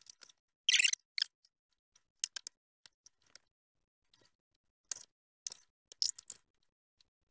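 Kitchen knife cutting and tapping on a cutting board during food prep: scattered short, sharp knocks and scrapes in irregular clusters, with a longer scraping stroke about a second in.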